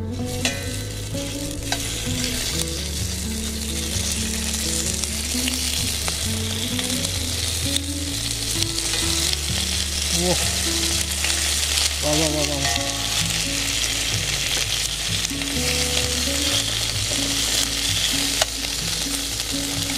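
Bacon frying in a pan, its fat sizzling steadily.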